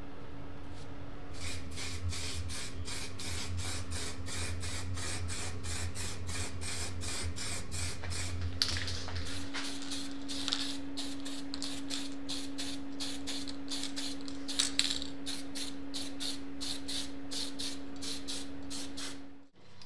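Paint sprayed onto small metal trike parts in short spurts of hiss, about three a second, over a steady low hum.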